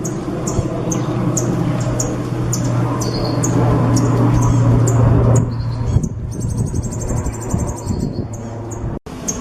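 A songbird giving short, high chirps a couple of times a second, then a fast, high buzzing trill of about two seconds near the end, the kind of rapid burst Indonesian bird keepers call a 'tembakan'. Under it runs a steady low hum and background noise.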